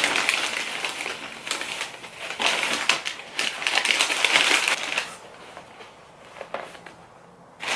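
Packaging rustling and crinkling as a pair of shoes is unwrapped and lifted out of a box, busy for about five seconds, then a few lighter rustles and a click near the end.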